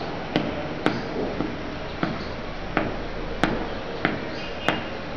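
Chalk tapping and scratching against a blackboard during writing: a series of sharp, irregular taps, about one to two a second, over a low steady hum.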